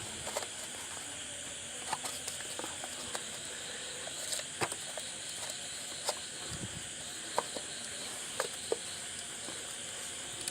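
Scattered light clicks and knocks of hands and fingers working a car's distributor cap loose in the engine bay, over a steady background hiss.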